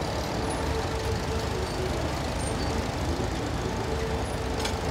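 Several small vintage tractors running together, a steady engine sound as they drive in slow formation.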